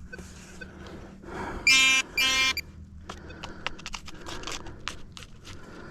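Minelab Manticore metal detector giving two short buzzy target tones over a buried signal in a dig hole, followed by faint scraping and clicking of soil being worked.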